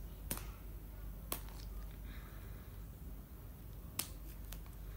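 Four short, sharp clicks and taps of fingers and fingernails on a cardboard tablet box as it is picked at to open it, the first about a third of a second in, another a second later, and two close together near the end.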